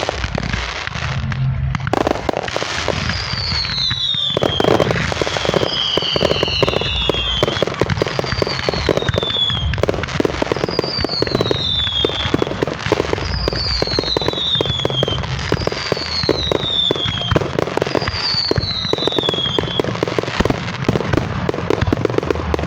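Fireworks crackling and popping in a rapid, continuous barrage. Over it, about eight high whistles each fall in pitch, roughly every two seconds.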